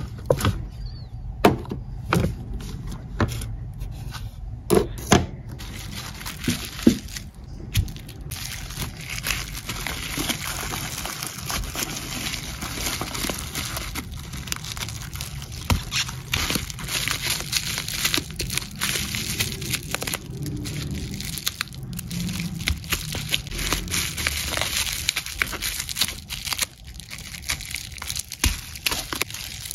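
Plastic slime tubs knocking and clicking as they are handled, for the first several seconds, then bubble wrap crinkling and rustling steadily as a slime container is wrapped by hand.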